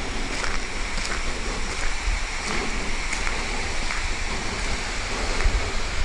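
Footsteps crunching on a gravel and dirt path, about one step every two-thirds of a second, over a steady rush of flowing water.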